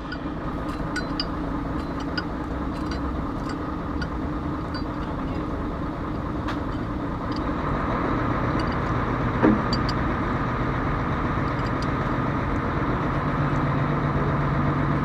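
A motor vehicle engine running steadily, with scattered light clicks over it. The hum grows a little louder about halfway through.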